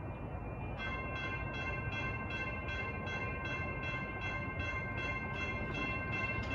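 Railroad grade-crossing bell starting up about a second in and ringing in rapid, even strokes, about three to four a second. It is the crossing's warning that a light-rail train is approaching.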